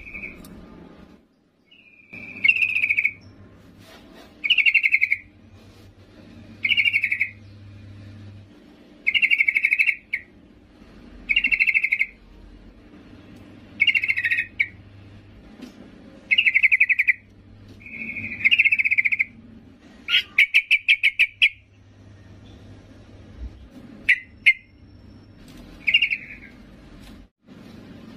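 Yellow-vented bulbul's female call: short bubbling phrases repeated about every two seconds, with a fast rattling run of notes about two-thirds of the way through. This is the call of a hen calling to a male, the sound used as a lure for male bulbuls.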